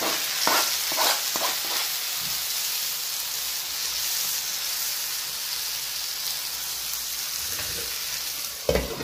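Chopped onions and freshly added diced tomatoes frying in hot oil in a frying pan, a steady sizzle. A spoon stirs and scrapes the pan with a few clicks in the first couple of seconds, and there are a couple of knocks near the end.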